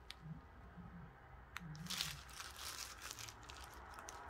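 Small plastic zip-lock bags of square resin diamond-painting drills crinkling as they are handled, with scattered small clicks, busiest about two to three seconds in.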